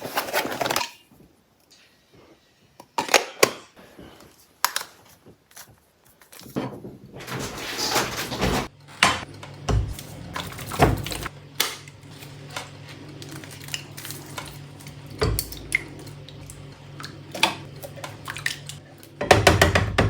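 Cutlery and dishes clinking and clattering at a homemade mini stirring machine. About six seconds in a steady low hum starts and runs under the clinks until shortly before the end.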